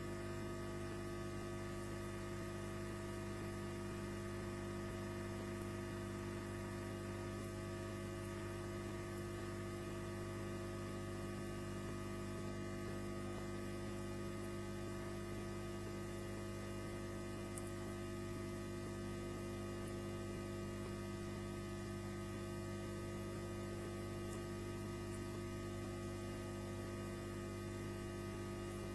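Steady electrical mains hum with a stack of overtones over a light static hiss, at the same level throughout, with a few faint ticks; no osprey calls stand out.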